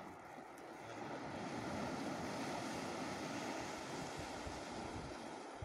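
Sea waves breaking and washing over shoreline rocks, a steady rushing that swells about a second in.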